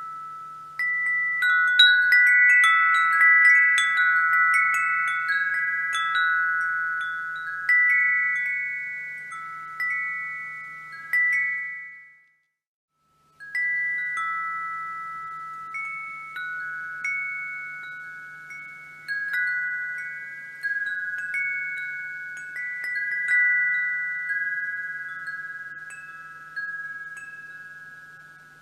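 Wind chimes ringing, with several pitches struck at irregular moments, overlapping and fading out. About 12 seconds in, the sound dies away to silence for about a second, then the chimes start again abruptly.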